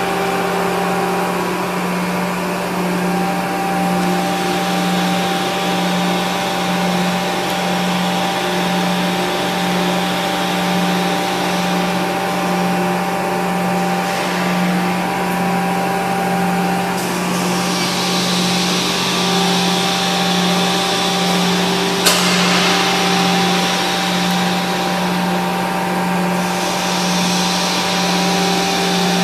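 Steady machine hum from an 800-ton stamping press during an automatic die change, with a low drone that swells and fades evenly and steady higher tones above it. One sharp click comes about three quarters of the way through.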